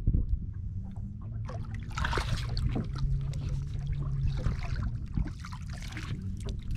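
Water sloshing and splashing against the side of a small boat, with wind and handling noise on the microphone and a faint low hum.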